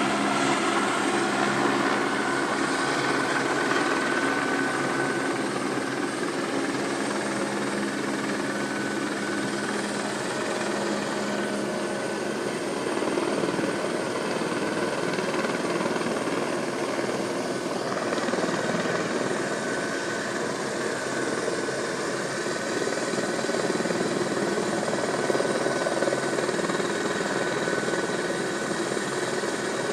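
Helicopter running close by: a steady rotor and engine sound with a faint high whine over it.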